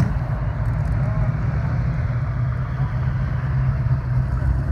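Classic car engines running at low speed as the cars drive slowly past, a late-1960s Ford Mustang coupe closest; a steady low rumble.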